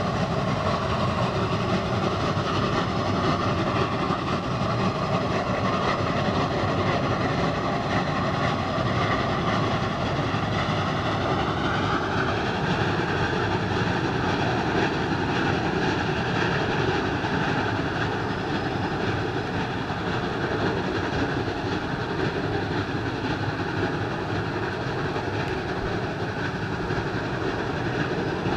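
Geared steam locomotive working hard as it pulls a train away, exhaust chuffing, with a steady high-pitched tone over it that rises slightly about twelve seconds in; it gets a little quieter toward the end.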